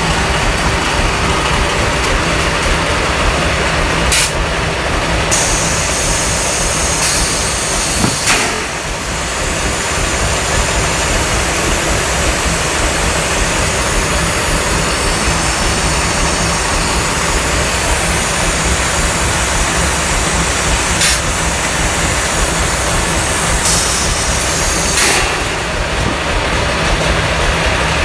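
Corrugated carton machinery and its board stacker running: a loud, steady mechanical noise with a low hum as the sheets feed through, broken by a few sharp clicks.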